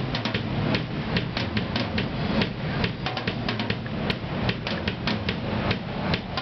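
Rapid, irregular sharp taps or knocks, several a second, over a steady low hum.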